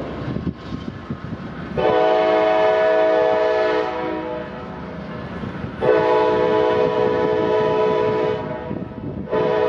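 Passenger train's multi-chime air horn sounding two long blasts, then a short one starting near the end, in the long-long-short pattern of a grade-crossing signal. Under the horn the passenger cars rumble steadily over the rails.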